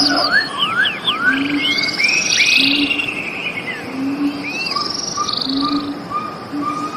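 Several birds calling and singing at once: sliding whistled notes and buzzy trills, with a low short note repeating about every second and a half. From about halfway through comes a run of short, even notes at about three a second.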